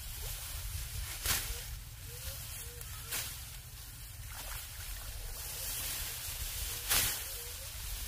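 Ripe rice stalks being cut by hand with a sickle: four sharp, brief cuts spread through, the loudest about seven seconds in.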